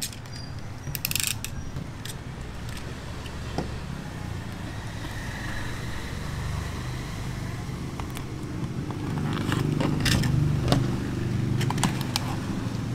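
Utility knife blade piercing and cutting a thin plastic PET soda bottle, with sharp crackles and clicks of the plastic: a burst about a second in and a cluster from about eight seconds on. A steady low rumble runs underneath.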